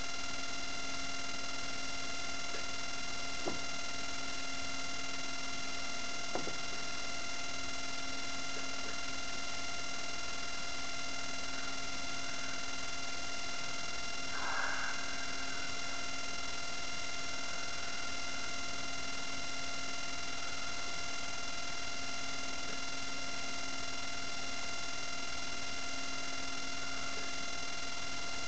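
Steady electrical hum with a high whine of several even tones, unchanging throughout. Two faint clicks come a few seconds in, and a brief faint sound about halfway.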